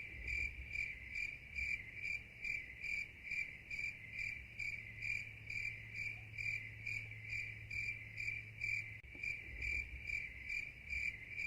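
Insect chirping in a steady, even rhythm, about two high-pitched chirps a second.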